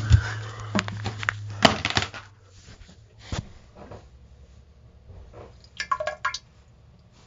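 Diarrhea sound effect: wet splats and splashes into toilet water, several sharp ones in the first two seconds and another about three seconds in, then a short sputtering, flatulent burst about six seconds in. A low hum underneath stops about two seconds in.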